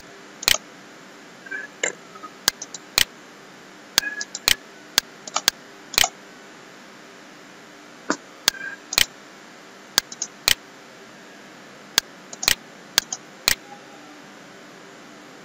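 Computer mouse clicking at irregular intervals, some clicks in quick pairs such as double-clicks, over a faint steady hum.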